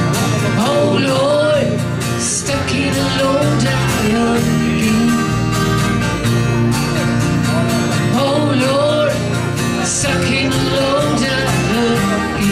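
A small band playing live: a woman singing a melody over strummed acoustic guitars and electric guitar.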